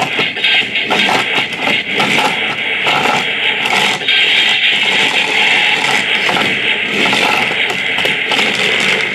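Radio-controlled toy Max D monster truck running, its small electric motor and gears whirring as it climbs over a plastic stunt ramp, with rattling and knocking from the wheels and plastic body.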